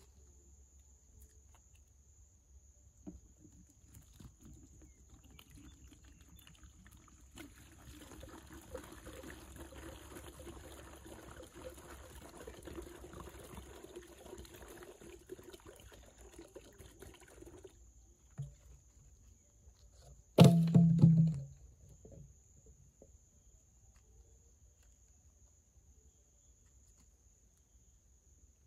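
Water poured from a plastic bottle into a plastic bucket, splashing steadily for about ten seconds. A few seconds after it stops, a sudden loud thud lasting about a second.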